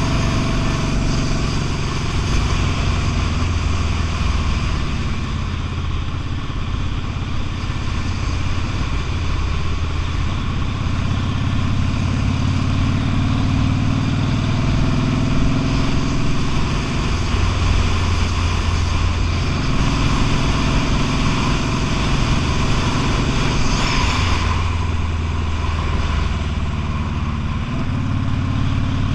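V-twin motorcycle engine running on the road, its pitch stepping up and down several times with throttle and gear changes, over a steady rush of noise.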